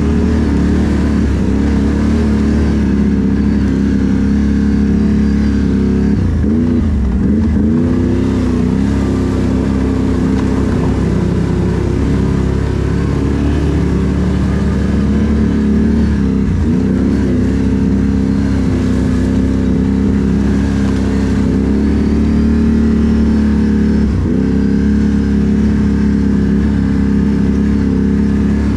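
A Can-Am ATV's engine running under way at steady throttle. Its note drops briefly and picks back up three times, as the throttle is eased off and opened again.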